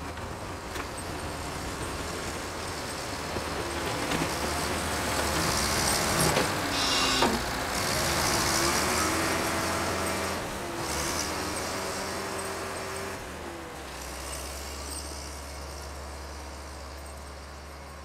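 Old Volvo wheel loader driving past with a full bucket of snow, its engine growing louder as it comes near, loudest about seven seconds in, then fading as it moves away.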